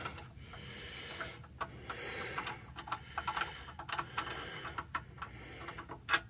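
Light scattered clicks and rubbing as a loosened oil drain plug is turned out of the oil pan by hand, with one sharper click near the end.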